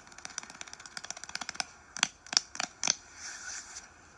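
ASMR hand sounds: hands rubbing and fingers crackling close to a microphone, with a few sharper clicks about two to three seconds in.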